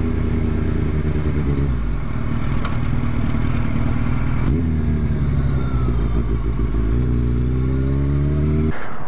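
Yamaha FZ8's inline-four engine running as the motorcycle is ridden at low speed. Its pitch steps down and up a few times with the throttle, and the sound cuts off suddenly near the end.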